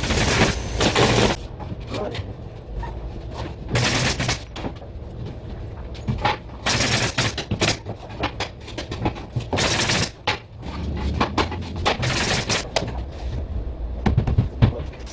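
Pneumatic nail gun (tacker) firing many sharp shots into ceiling work, singly and in quick bursts of several, over a steady low hum.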